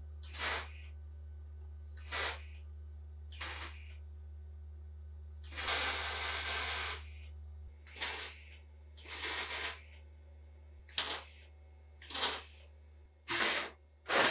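About ten short bursts of spraying hiss, irregularly spaced, with one longer burst of about a second and a half midway, over a steady low hum.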